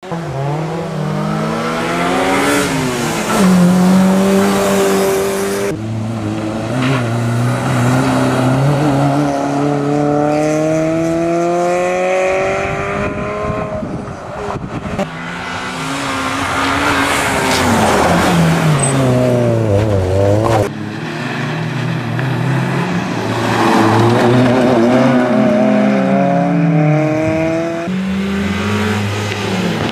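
Honda Civic EG3 rally car's four-cylinder engine revving hard, its pitch climbing and dropping again and again as it is driven through the gears. The sound cuts abruptly from one pass to the next several times.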